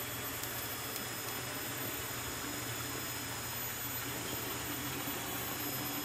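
Steady rush of flowing water, with faint high insect tones above it.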